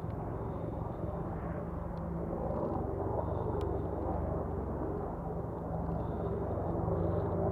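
AH-64 Apache attack helicopters approaching in the distance: a low, steady rotor and engine rumble that grows gradually louder.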